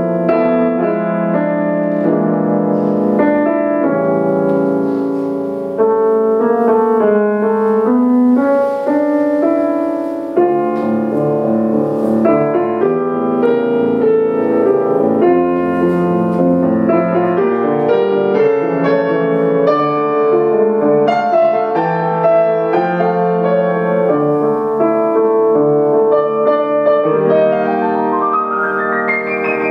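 Grand piano played solo in a continuous, flowing passage of many notes; near the end a fast run climbs up the keyboard.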